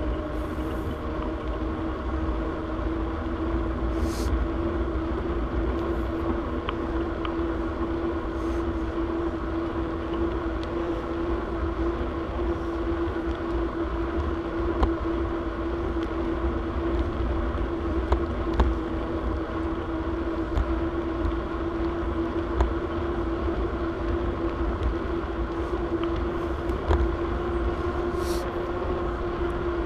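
Bicycle riding at a steady pace on a paved trail: wind rumbling on the camera's microphone over steady rolling noise and a steady hum, with a few faint ticks.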